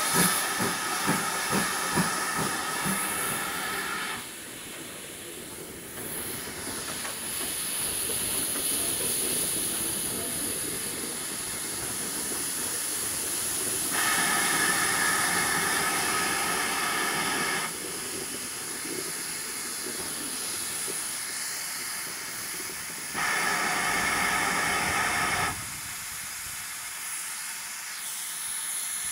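Steam-hauled train under way, heard from a carriage: a steady running rumble with a constant hiss, a few evenly spaced exhaust beats at the start, and three spells of a few seconds each of a louder high-pitched tone.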